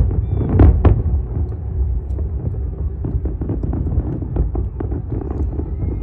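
Distant fireworks: a continuous low rumble of overlapping bursts, with a few sharper cracks in the first second.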